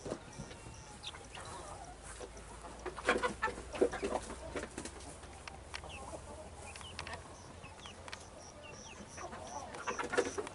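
Chickens clucking and young chicks peeping in short rising chirps, with scattered clusters of knocks about three seconds in and again near the end.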